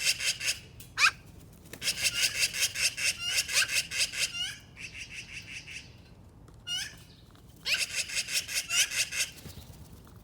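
Magpie giving bouts of harsh, fast rattling calls, broken by short rising squeaks, as a hungry bird calls for food.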